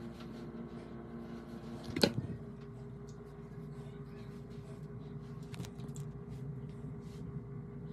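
Hands rustling through curly hair while a headband is put on, with a sharp click about two seconds in, over a faint steady hum.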